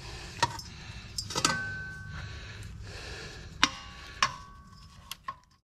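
Hammer knocking on a steel wheel hub bearing assembly and backing plate: about seven sharp, uneven metal knocks, several leaving a short ringing tone, as the hub is tapped loose from the backing plate pressed onto it.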